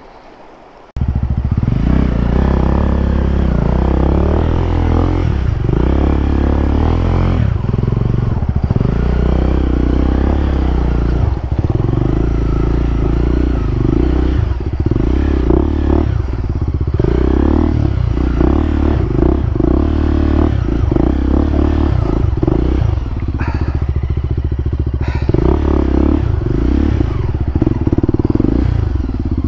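Single-cylinder trail motorcycle engine running close to the microphone while the bike is ridden. It comes in suddenly about a second in, with some clatter over the engine.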